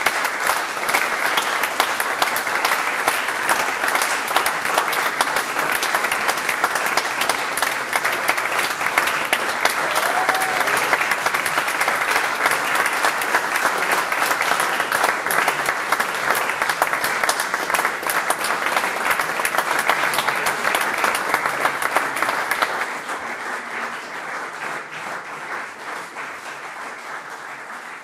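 Audience applauding in a concert hall, a dense, steady clapping that grows fainter over the last five seconds.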